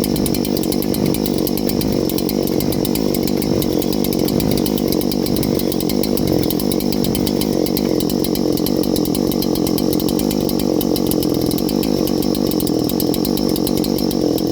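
Large clone Husqvarna 3120XP chainsaw's two-stroke engine running steadily, brand new on its first run.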